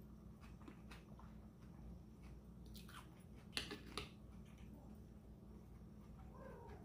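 Quiet, close chewing of crunchy shrimp ceviche, with a metal spoon clicking twice against the glass goblet about three and a half and four seconds in.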